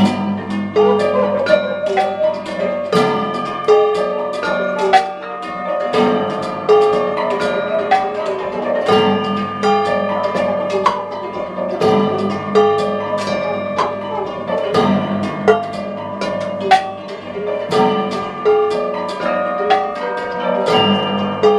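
Live small-ensemble music: hammered dulcimer, piano, guitar and percussion play a busy pattern of struck and plucked ringing notes. The whole group comes in together suddenly at the start.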